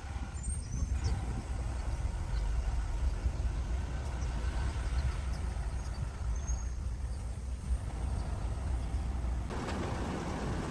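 A steady low rumble with no clear rhythm or tone, like wind or engine noise.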